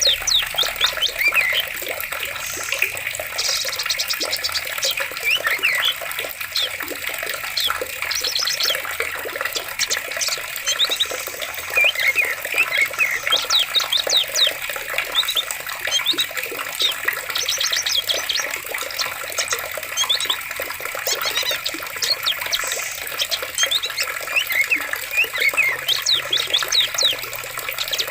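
Steadily running water with many birds chirping over it, including several quick rapid trills.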